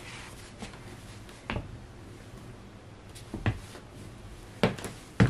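Knocks and clacks of a 22-inch Penny plastic skateboard and sneakers on a hardwood floor as someone steps onto the board and shifts his weight on it: several separate knocks, the loudest near the end.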